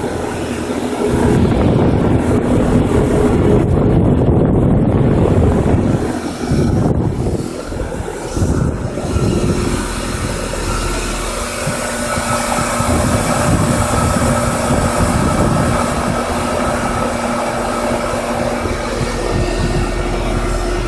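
Outdoor unit of a 2007 Trane XB13 heat pump running in heat mode, its compressor and fan making a loud, steady noise. The noise is rough and uneven for the first nine seconds or so, then settles into a steadier hum. The owner takes it for the compressor valves popping off under too-high head pressure.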